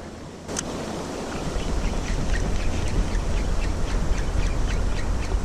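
Wind buffeting the camera microphone over crashing surf, a steady low rumble that builds over the first second or so, with a quick run of light ticks laid over it through the middle.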